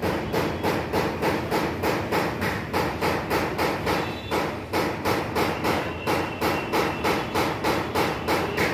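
Rapid, evenly spaced knocking, about three sharp strikes a second, over a steady background hum, stopping abruptly near the end.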